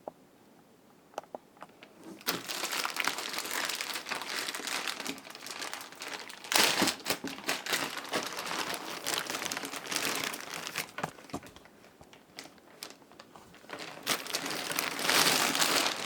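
Plastic wrapping being crinkled and pulled off a keyboard controller. It starts about two seconds in, after a few light clicks, eases off briefly past the middle and grows louder again near the end.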